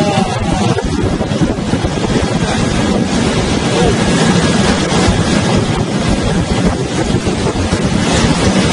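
Steady, loud storm wind buffeting the microphone aboard a vessel in heavy seas, over a low rumble and the wash of breaking waves.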